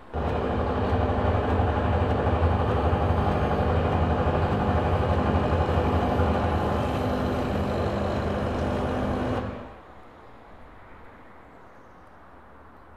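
Loud, steady, low mechanical rumble with a drone running through it, like a heavy engine. It starts suddenly and cuts off sharply about nine and a half seconds in.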